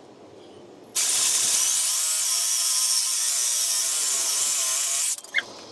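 Sawzall reciprocating saw cutting through a steel-hard handlebar tube, starting about a second in and running steadily for about four seconds before stopping abruptly; a single short knock follows just after.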